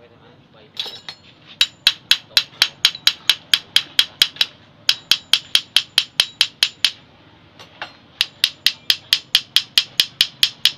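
Rapid metallic tapping, about four sharp strikes a second, as a slim metal tool knocks against a scooter's centrifugal clutch shoe assembly. The tapping stops for about a second near seven seconds in, then resumes at the same pace.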